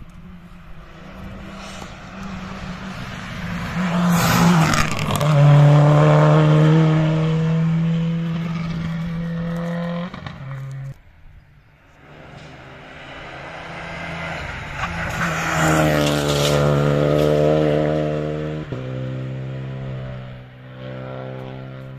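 Rally cars running flat out past the stage at high revs: the first swells up to a loud, steady engine note and is cut off sharply about halfway through. A second then approaches and passes loud, its engine note dropping lower near the end.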